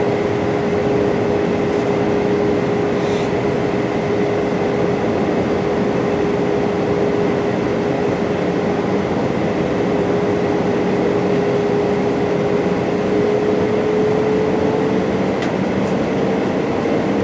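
Steady cabin noise of an Airbus A318 airliner on approach, heard from a seat beside the engine: a turbofan's steady drone with airflow rush. The drone's hum rises a little in pitch near the end.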